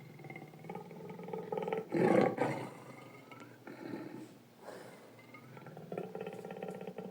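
Big-cat vocal sound effects for a sabre-toothed cat: a low, rasping growl throughout, with one loud roar about two seconds in.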